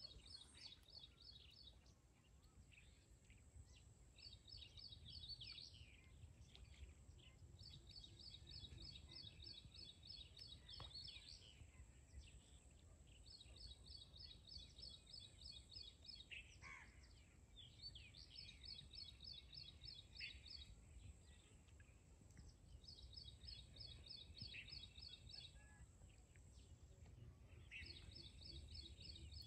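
Faint bird song: a small bird repeating a fast, even trill of high notes, each phrase one to three seconds long, about seven times, over a low rumble.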